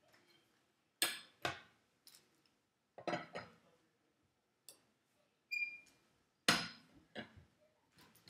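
Steel tire iron clanking against a car wheel's lug nuts as it is fitted on and turned to loosen them: a string of sharp metal clinks and clanks at irregular intervals, one followed by a brief high ring a little past the middle.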